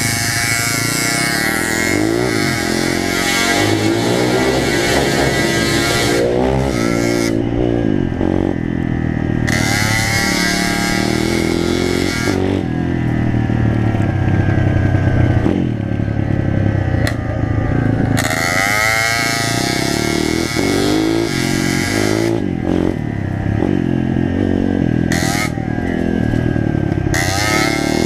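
Pit bike engine being ridden hard: it revs up with the pitch climbing, eases off as the throttle closes, and pulls up again, several times over.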